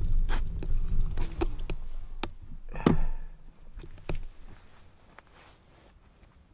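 Wind rumble on the microphone from the e-scooter ride dies away as the scooter comes to a stop, with scattered clicks and knocks and one louder knock about three seconds in.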